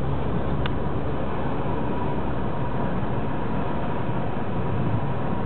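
Steady road and engine noise inside a moving car's cabin, with one short click under a second in.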